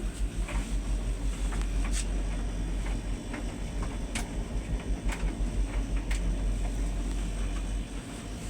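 Bosch Serie 6 heat pump tumble dryer running a cotton cycle: a steady low hum with a fast pulsing rumble as the drum turns, and a few sharp clicks. The machine is shaking a little as it runs.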